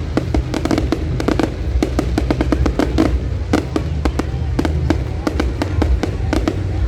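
Fireworks display: many sharp bangs and crackles in quick succession, several a second, over a steady low rumble.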